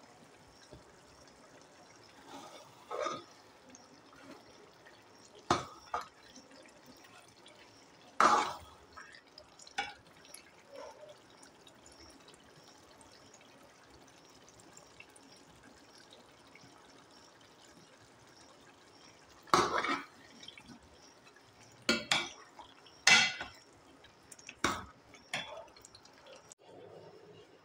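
A steel spoon stirring thick, wet pumpkin curry in an aluminium pot, with scattered sharp clinks and scrapes of the spoon against the pot, mostly in the first ten seconds and again near the end.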